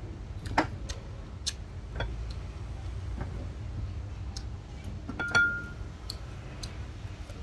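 Eating at a table: scattered sharp clicks and light knocks as food is handled on a plate and chewed, with two louder clinks about half a second in and about five seconds in, the second ringing briefly. A steady low hum lies underneath.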